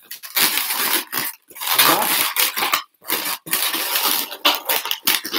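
Latex modelling balloons squeaking and rubbing against each other as they are twisted and locked together, in irregular bursts with short pauses.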